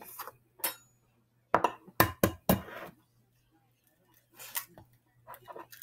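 Eggs knocked against a clear glass mixing bowl to crack them: four sharp clinks in quick succession about a second and a half in, then softer clinks near the end.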